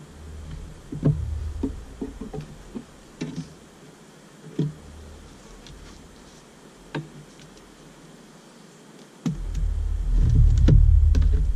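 Scattered light knocks and clicks of wooden hive frames and a hive tool being handled during a beehive inspection. Under them is a low rumble of wind on the microphone that swells and becomes the loudest sound about nine seconds in.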